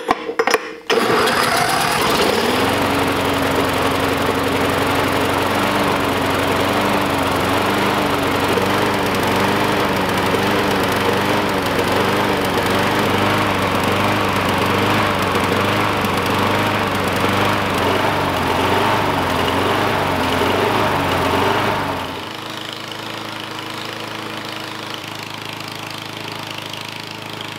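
Small lawn mower engine spun with a drill on its flywheel nut, catching within about a second and running on Everclear, with tape over the carburetor mouth acting as a choke. Its pitch wavers steadily up and down as it runs, and it turns quieter about 22 seconds in.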